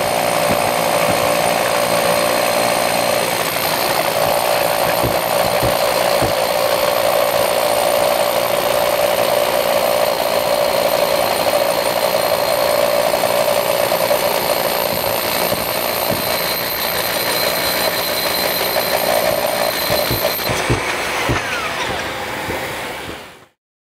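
Hilti TE-50 AVR corded combo hammer drilling into a concrete block, with the steady, dense hammering rattle of the rotary hammer running under load. It cuts off suddenly near the end.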